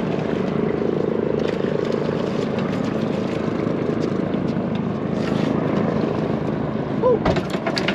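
Boat engine running steadily under wind and water noise. A short, louder, irregular sound breaks in about seven seconds in.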